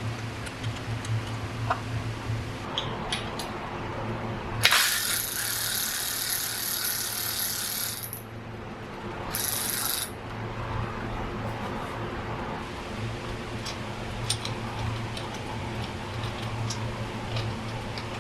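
Mechanical clicking and ratcheting of tools working on bicycle components, with two bursts of loud hissing a few seconds in, a long one and then a short one.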